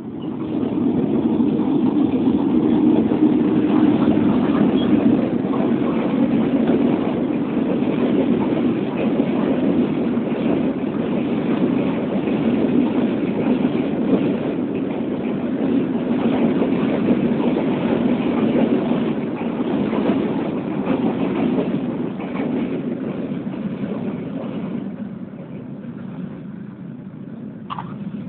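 Matarmaja passenger train running along the track: a loud, steady rumble of wheels on rail that fades over the last few seconds.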